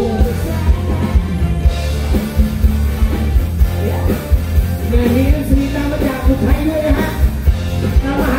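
Live rock band played loud through stage speakers: a woman singing into a microphone over electric guitar and a steady drum beat.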